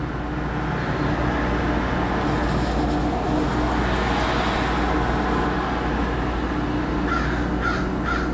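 A vehicle going by: a steady rumble whose hiss swells and then fades about midway.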